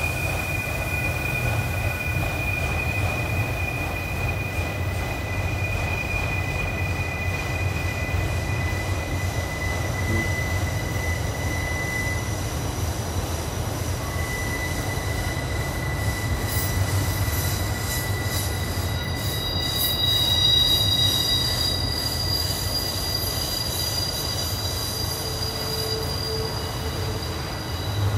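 A long auto rack freight train rolling past on a tight curve, its wheels squealing in steady high-pitched tones that shift from one pitch to another, over a constant low rumble.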